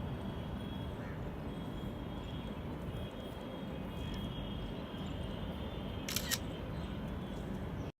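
Steady background hiss with a faint high tone coming and going, and one short click-like burst about six seconds in; the sound cuts out abruptly just before the end.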